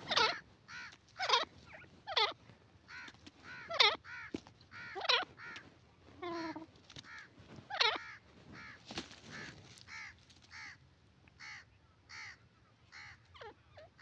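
Grey francolin calling: a run of short, harsh, crow-like notes repeated every second or so, louder in the first half and fainter toward the end.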